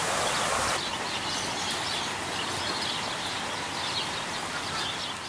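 Outdoor garden ambience: a steady hiss of background noise with faint small-bird chirps scattered through it. The background noise changes character about a second in.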